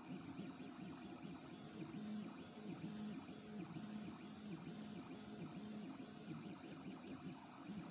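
Stepper motors of a home-built 3D printer driving a pen as a plotter, running with a low whine that jumps to a new pitch every fraction of a second as the bed and pen carriage make short drawing moves.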